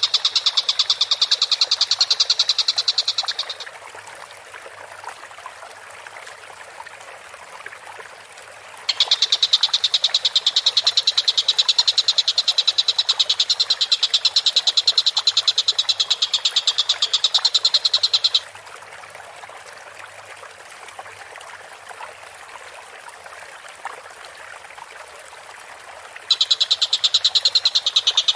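Tengkek buto (collared kingfisher) calling in long bouts of very rapid, high, rattling notes. The first bout ends about three and a half seconds in, a second runs for about nine seconds from around nine seconds in, and a third begins near the end. Between the bouts there is only fainter background sound.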